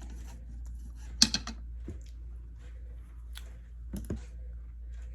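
Close-up eating sounds: chewing with a few sharp mouth clicks, the loudest a quick cluster a little over a second in and another about four seconds in.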